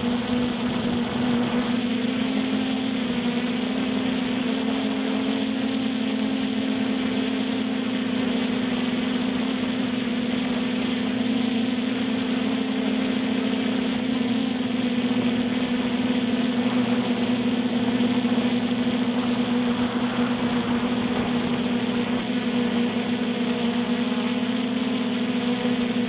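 Multirotor drone's motors and propellers humming steadily as it hovers, the pitch holding even throughout.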